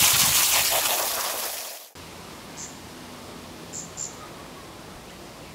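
Water from a garden hose spraying onto freshly unpotted adenium roots: a loud hiss that fades and cuts off about two seconds in. Then a low steady background hiss with three faint, short high chirps.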